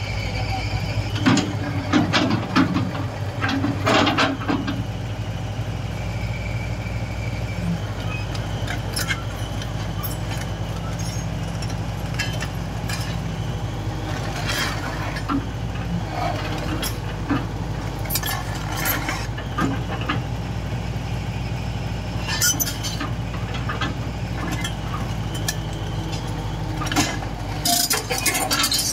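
Daewoo Solar 280LC-III crawler excavator's diesel engine running steadily as the machine travels on its steel tracks toward and onto a trailer's loading ramps, with repeated metallic clanks and squeals from the tracks and undercarriage.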